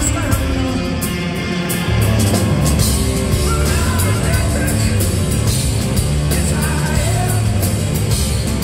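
Hard-rock band playing live: drums, electric guitar and bass, with a male singer's voice over them. The low end grows heavier about two seconds in.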